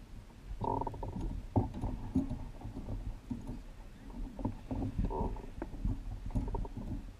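Muffled, irregular knocks and thumps of gear being handled against a plastic fishing kayak's hull, over a low rumble.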